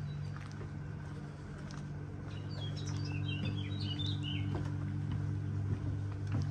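A small songbird sings a quick burst of high chirps about two seconds in, lasting a couple of seconds, over a steady low hum.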